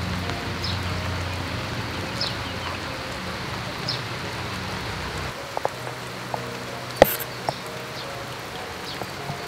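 Steady rain falling on a thatched roof and yard, with a low hum in the first half that stops about five seconds in. A few sharp drips or taps come in the second half, the loudest about seven seconds in.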